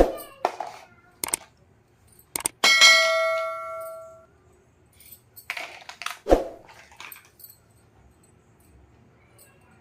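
A single bright metallic ding that rings out and fades over about a second and a half, set among sharp clicks and knocks of small hard pieces being handled.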